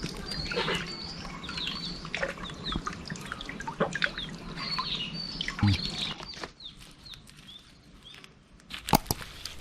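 Small birds chirping in repeated short calls, with scattered small clicks and a thud. Two sharp knocks come near the end.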